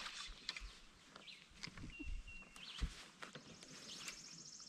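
Quiet lakeside ambience: birds calling with short high whistled notes and a high trill near the end, over scattered light clicks and one dull knock on the boat deck about three seconds in.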